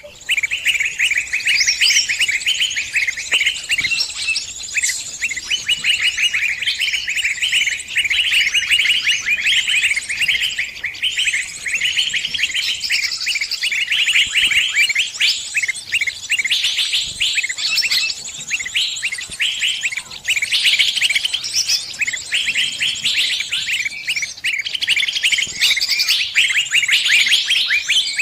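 Sunbirds chirping: a dense stream of rapid, high twitters, many calls overlapping with no break.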